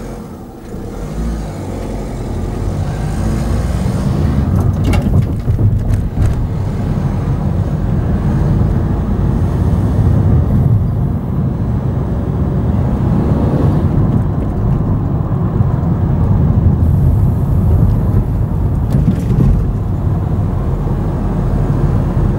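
Car driving off from a standstill, its engine and road noise swelling over the first few seconds and then running steadily at road speed. A few sharp knocks come around five seconds in as the wheels go over the level crossing.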